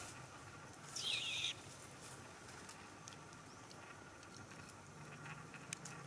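Short high squeal from a young macaque about a second in, over faint outdoor background with scattered light clicks.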